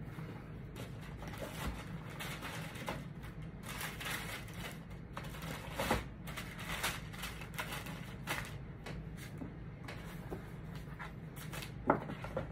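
Paper rustling and cardboard being handled as sneakers are packed back into a cardboard shoebox, with one sharp knock near the end as the box lid is handled.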